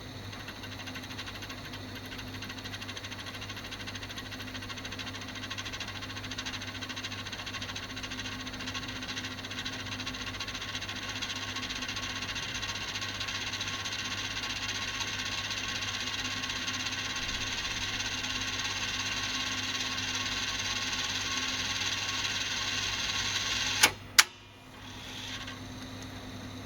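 Victor BR-6400 VHS deck winding tape at high speed, a steady rasping whir that slowly grows louder. The owner traces this noise to the tape guide roller. Near the end, two sharp mechanical clicks come a fraction of a second apart, and the whir drops away.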